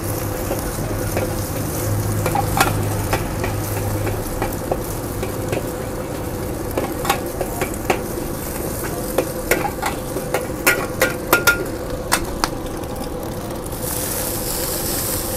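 Eggs frying and sizzling in a wok while a metal spatula stirs them, scraping and clicking against the pan, with the clicks thickest in the middle. About fourteen seconds in, the sizzle turns to a brighter, louder hiss as seasoning water is poured in.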